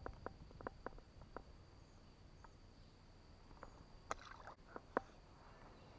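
Faint scattered clicks and light knocks from moving about in a small jon boat, with a cluster of them about four seconds in, over a steady faint high whine.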